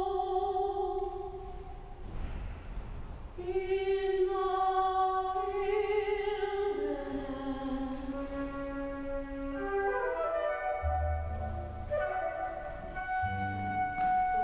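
Live chamber opera music: a slow melody of long held notes, with a short break about two seconds in. Low string notes, from the double bass, come in under it near the end.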